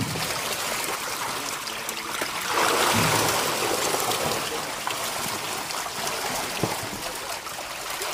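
Water splashing and churning as a mass of catfish thrash in shallow water, with small scattered splashes throughout. It swells louder for about a second partway through.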